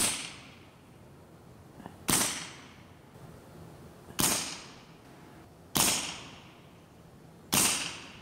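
Evanix Viper .25 caliber semi-automatic PCP air pistol, fitted with a moderator, firing five shots about two seconds apart. Each is a sharp report with a short fading tail.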